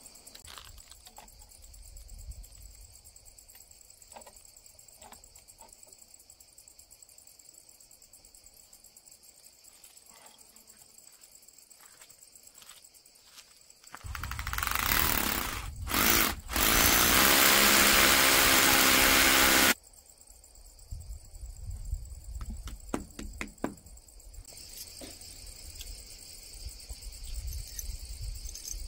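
Crickets chirping steadily. About halfway through, a loud motor starts up, runs for about six seconds and cuts off suddenly. Faint scattered clicks come before and after it.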